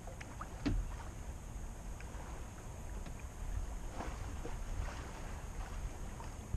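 Sailboat under way under sail: water lapping and splashing against the hull, with a low rumble of wind on the microphone and a brief louder knock about two-thirds of a second in.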